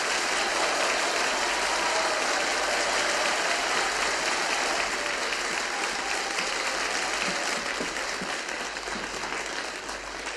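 A crowd applauding, a steady dense clapping that eases off slightly near the end.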